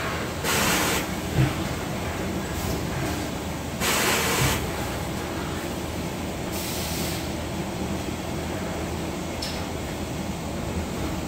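Factory floor ambience: a steady mechanical hum with two short bursts of hissing, about half a second and about four seconds in, and a couple of light knocks.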